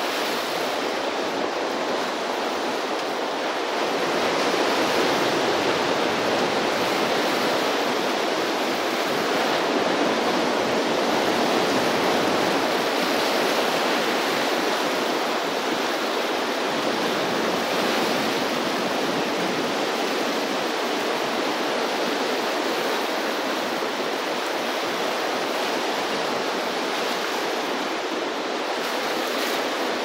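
Ocean surf from swell waves breaking and washing ashore in a continuous rush, growing louder about four seconds in and easing off after the middle.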